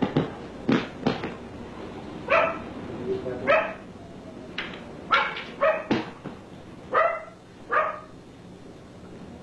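A dog barking repeatedly: about seven short barks from about two seconds in, spaced unevenly. A few sharp knocks come in the first second or so.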